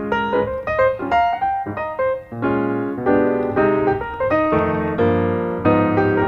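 Background music played on piano: a run of quick notes and chords at a steady pace.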